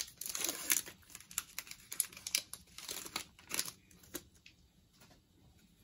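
A football trading-card pack's wrapper being torn open and crinkled by hand: a quick run of crackles and rips that stops about four seconds in.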